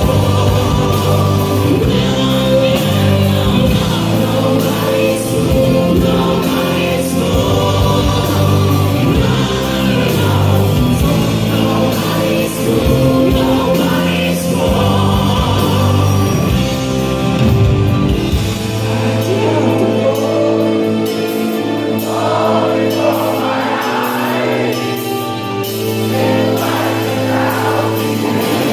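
Live rock band playing a slow power ballad, with sustained keyboard chords under several voices singing together. The deepest bass drops out about two-thirds of the way through.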